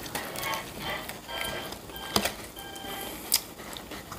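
Eating sounds: finger licking and chewing of sauce-glazed fried chicken, with two sharp mouth clicks about two and three and a half seconds in, over faint background music.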